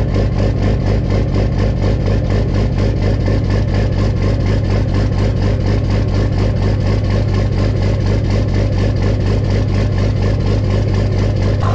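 Dodge Ram 2500's Cummins diesel engine idling steadily: a low, even rumble with a quick regular pulse.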